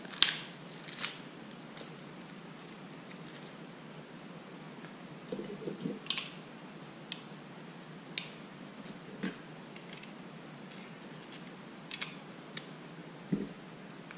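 Scattered light clicks, snaps and taps of small plastic parts being handled while a coin battery is fitted into a Honeywell 3 Series wireless doorbell push button, the sharpest snaps near the start.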